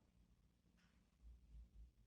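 Near silence, with a faint click and then a few faint low thuds in the second half.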